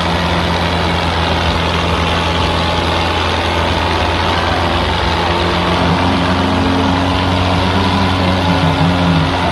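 Diesel tractor engines running hard under full load as two tractors pull against each other in a tug of war, the Mahindra Arjun 555 smoking heavily. The engine sound is loud and steady, and a wavering higher note joins from about six seconds in.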